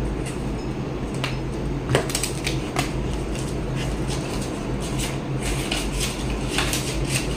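Paper banknotes and cash envelopes being handled: scattered crisp rustles and short clicks, over a steady low hum.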